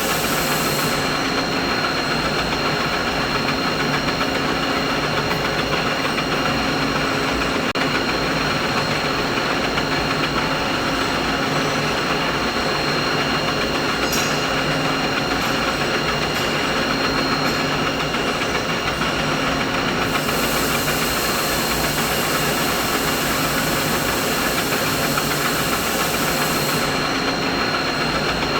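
Steady mid-pitched machine hum and whir, running on without change, with a few faint steady tones riding on it.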